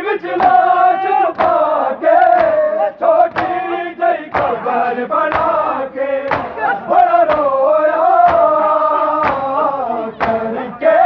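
A crowd of men chanting a mourning lament (nauha) together, led by a reciting voice, while they strike their chests (matam) in unison about once a second.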